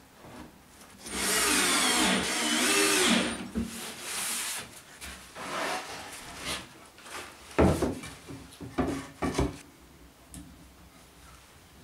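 A power drill runs on wood for about two seconds, with a high whine. Quieter scraping follows, then a quick series of sharp knocks of wood pieces being handled.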